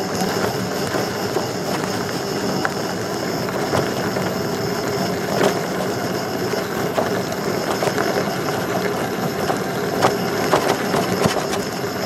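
Electric unicycle riding over a dirt trail: a steady motor whine with tyres crunching on the dirt, and scattered short clicks and knocks from bumps.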